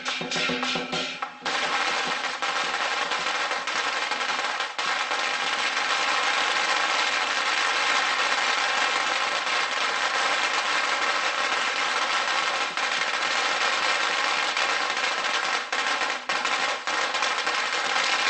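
A long string of firecrackers going off in a rapid, unbroken crackle, starting about a second and a half in. Temple procession drums and gongs are heard just before it takes over.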